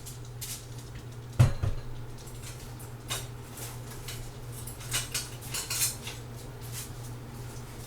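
Kitchen utensils clattering: a big spoon knocking against a soup pot, with one sharp knock about a second and a half in, then a run of lighter clinks. A steady low hum runs underneath.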